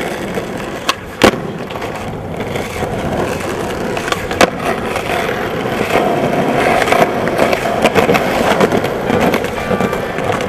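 Skateboard wheels rolling over rough asphalt, a steady gritty rumble, with a few sharp clacks of the board: two about a second in, the louder second one, and another at about four and a half seconds.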